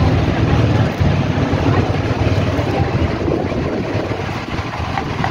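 Motorized outrigger boat's engine running steadily, a low pulsing drone.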